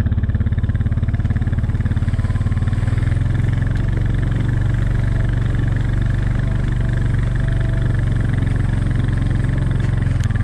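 ATV engine running steadily at low speed while towing a sled loaded with firewood over packed snow.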